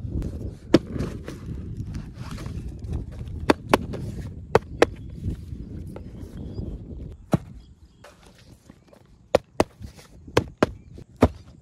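Handling noises from a die-cast toy tractor model and its packaging being unboxed: rubbing and rustling for the first several seconds with a few sharp clicks, then quieter, with a string of separate sharp clicks and taps near the end.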